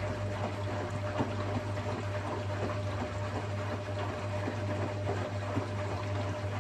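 Hotpoint Experience WMEF641 washing machine filling with water, the water pouring in through the inlet with a steady low hum underneath. A thin steady tone stops near the end.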